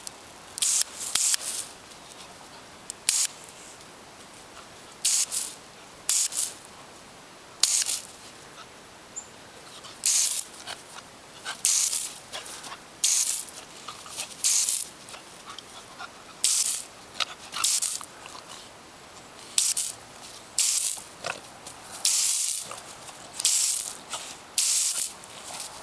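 A shar pei puppy sniffing and snuffling: short hissing breaths, singly or in pairs, about once a second.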